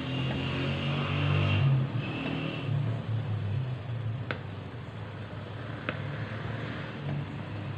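A low, steady motor-like rumble that shifts in pitch now and then, loudest in the first two seconds, with two sharp clicks in the middle.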